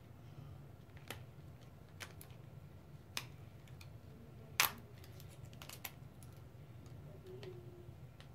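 Scattered light clicks and crackles of fingers picking at the zipper strip on a wrapped plastic LOL Surprise ball, about eight separate clicks with the loudest about halfway through, over a faint steady low hum.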